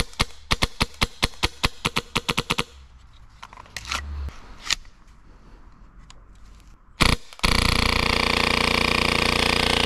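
A hose-fed airsoft pistol firing: a fast string of single shots, about seven a second, for the first few seconds, then a few scattered shots. From about seven and a half seconds in it fires one long, even full-auto burst.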